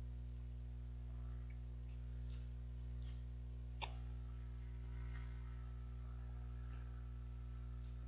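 Faint mouth sounds of someone eating soft steamed rice cake: a few small lip and mouth clicks, the sharpest a little under four seconds in, over a steady low electrical hum.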